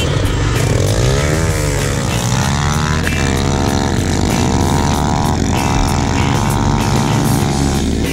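Motorcycle engines accelerating along a dirt track, the pitch climbing and dropping back several times as the bikes shift up through the gears, then holding a steady note in the last few seconds.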